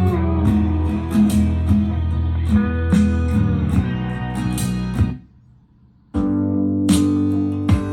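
Guitar music with heavy bass, played through an Xdobo Sinoband Challenger 2020 Bluetooth speaker set to EQ mode 2. The music breaks off for about a second a little past the middle, then comes back in.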